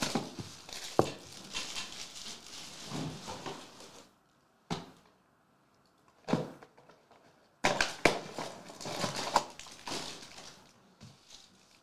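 Clear plastic wrapping crinkling and rustling as hands tear and handle it, in several irregular bursts with short gaps, and one sharp tap about five seconds in.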